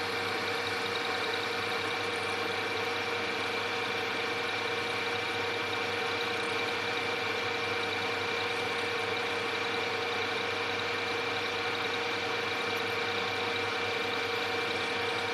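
Metal lathe running steadily with its chuck turning: an even mechanical hum with a held mid tone and a higher steady whine.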